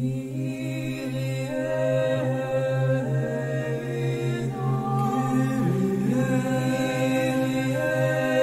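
Slow, meditative background music: a steady low drone under long held, chant-like notes that move to new pitches every second or two, swelling in at the start.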